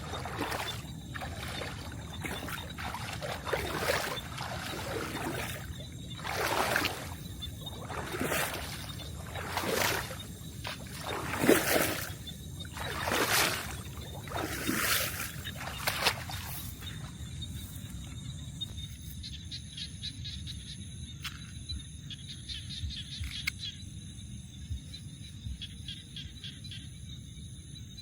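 Water splashing in a string of swooshes about one to one and a half seconds apart, then stopping after about sixteen seconds. A few steady high-pitched tones carry on after that.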